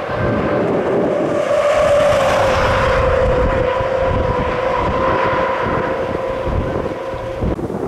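Wildland fire engines on the road, with a rumble of engines and road noise plus some wind on the microphone. Over it runs a steady whine that sags slightly in pitch over the first few seconds and fades just before the end.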